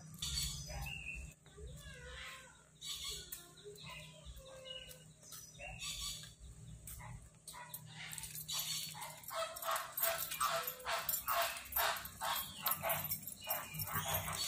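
A flock of American flamingos honking: a few scattered calls at first, then from about halfway through a fast run of short, goose-like honks, about three a second, getting louder.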